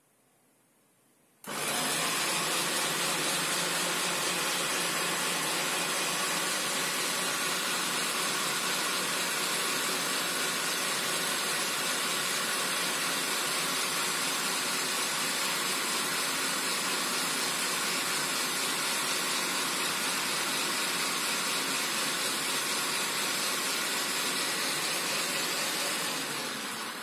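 Bolde Super Processor's electric motor switched on about a second and a half in, spinning the citrus-juicer cone with a steady whirring hiss as a lemon half is pressed onto it. It begins to slow just before the end as it is switched off.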